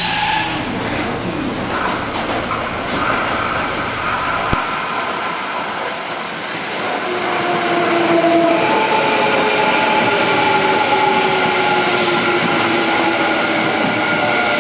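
Electric commuter train running through a station: a steady rumble of wheels on rail with a high hiss, then from about seven seconds in the whine of its traction motors, several tones slowly falling in pitch.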